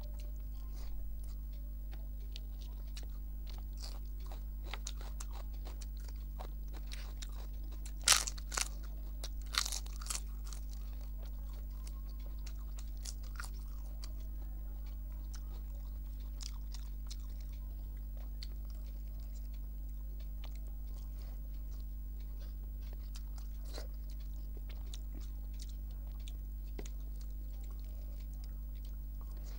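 Close-miked chewing and soft mouth clicks of a person eating rice and curry by hand, over a steady low hum. Loud crunches of crisp papad being bitten come about eight seconds in and again near ten seconds.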